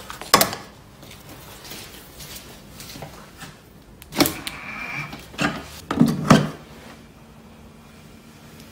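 Clicks and knocks of a Tesla charging connector being handled and plugged into a Tesla's charge port, the loudest knocks about six seconds in as it seats. A brief motor whirr about four seconds in comes as the charge port door opens.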